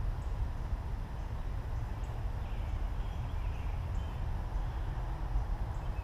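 Outdoor garden ambience: a steady low rumble, with a few faint distant bird chirps about halfway through.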